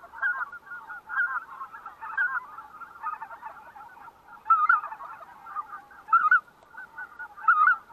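A flock of greater white-fronted geese calling: a continuous chatter of short, high yelping calls, with several louder calls in the second half.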